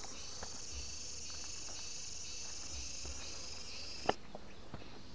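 A high, steady insect drone with a slight pulsing cuts off suddenly about four seconds in, at the same moment as a sharp click. Under it there are a faint low rumble and a few small clicks.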